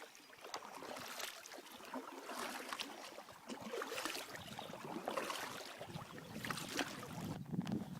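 Kayak paddles dipping and splashing in the water, a stroke about every second. A low rumble joins in near the end.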